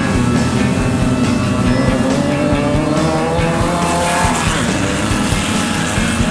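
Air-cooled VW Beetle flat-four engine of a Class 11 desert race car, heard from inside the car, running hard. Its pitch climbs for a few seconds, then drops away about four seconds in.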